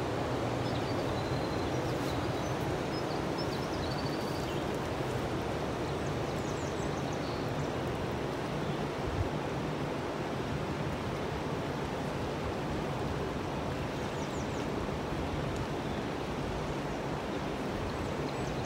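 Steady rush of a fast-flowing river running over rocks, with water spilling over a weir upstream.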